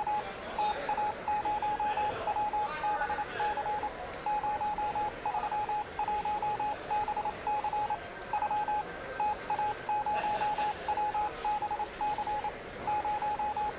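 An electronic beep tone keyed on and off in short and long pulses, in irregular groups like Morse code, over a background hiss.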